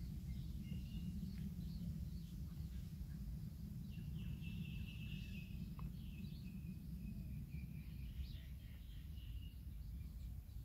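Faint outdoor ambience: birds chirping over a steady low rumble, with a longer run of chirps about four seconds in.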